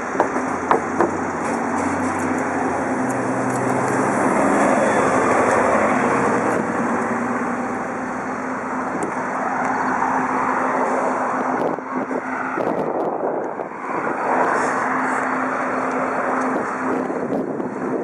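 Steady rushing noise of riding a bicycle along a street, with air on the microphone and road traffic, and a few knocks near the start. Under it a steady low drone holds on: the strange, persistent sound like bagpipes that is being tracked down.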